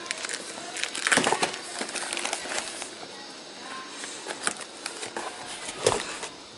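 Cardboard box and packaging being opened by hand: irregular rustling and crinkling with scattered sharp clicks and crackles, busiest about a second in.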